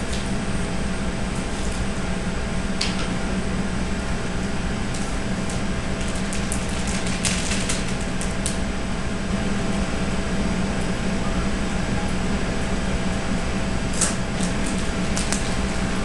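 Steady hum of commercial kitchen ventilation, with short crinkles and rustles of a plastic sauerkraut package being handled and opened: a few seconds in, in a cluster around the middle, and again near the end.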